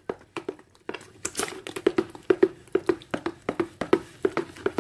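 A utensil knocking and scraping against a bowl as a thick mix of butters and dissolved powders is stirred by hand: irregular short knocks, a few each second.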